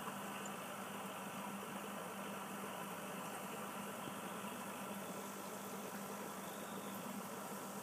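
Steady motor hum with a faint hiss from a running aquarium pump, unchanging throughout.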